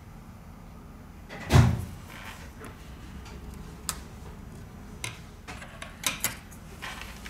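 Knocks and clicks of small objects being handled and set down on a hard surface: one heavier thump about a second and a half in, then several lighter clicks, two close together about six seconds in.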